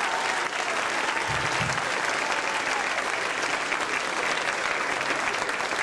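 Comedy club audience applauding steadily, sustained clapping at the end of a set.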